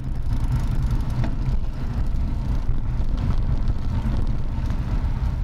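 Steady low rumble of a vehicle driving along a street: road and wind noise picked up by a drive recorder's microphone.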